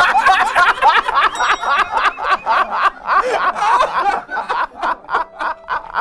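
Two men laughing hard together in rapid, continuous ha-ha-ha bursts, easing off a little toward the end.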